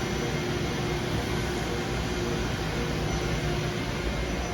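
Steady machine-shop noise: machinery running continuously, an even hiss with a few faint steady tones.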